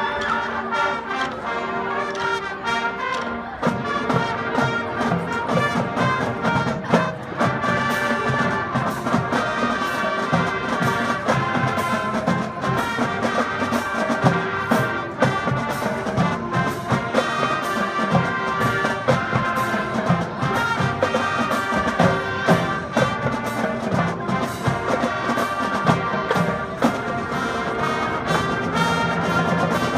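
A marching band playing on the field: brass carrying the tune over a steady drum beat.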